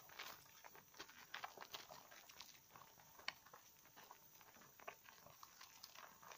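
Wet hands lathering a green bar of conifer soap in a basin of foam: faint, soft squelching of suds with scattered irregular small clicks and pops.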